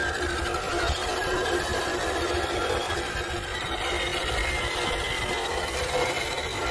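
Electric motor and gearbox of a 1/10 scale RC crawler whining steadily as it drives off-road.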